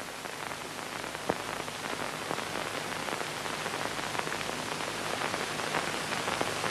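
Steady hiss with scattered faint crackles and clicks: the surface noise of an old film soundtrack between lines of narration, with a slightly louder click about a second in.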